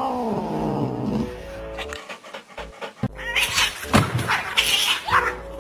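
A pet animal's cry falling in pitch, then a run of short raspy calls, over background music.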